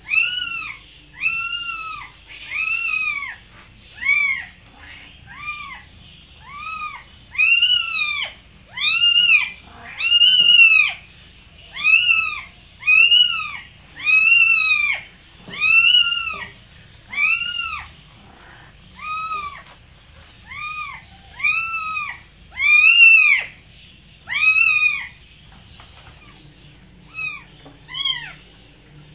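A cat meowing over and over, about one meow a second, each call rising then falling in pitch, with a short pause near the end.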